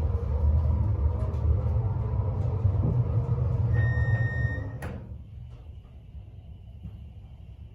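MEI hydraulic elevator travelling with a steady low rumble. About four seconds in a short electronic beep sounds, then a clunk as the car stops; the rumble drops away, leaving a faint steady high whine.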